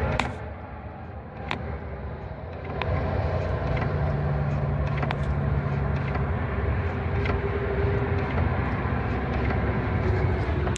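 A Lada car's engine idling steadily while the clutch pedal is pressed repeatedly, with a few short sharp clicks scattered through. The clutch is being checked for its squeak and clicks.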